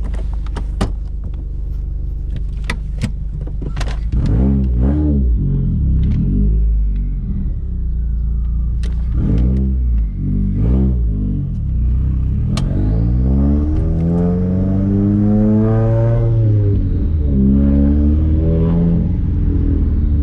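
Subaru flat-four engine idling with a few sharp clicks, then pulling away and revving up and dropping back through several gear changes, with a longer climb in revs about two-thirds of the way through. The engine is on a test drive on freshly fitted spark plugs, checked for a misfire.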